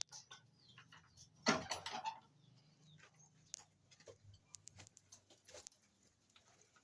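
A goat bleats once, a short rough call about a second and a half in, followed by faint scattered clicks and rustling from the penned animals.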